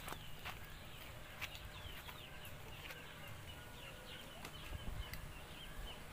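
Chickens clucking faintly, with a run of short high cheeps repeating several times a second.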